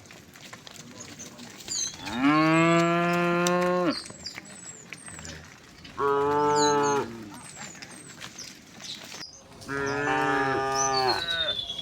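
Cows mooing: three long moos, the first and last lasting well over a second each, the middle one shorter.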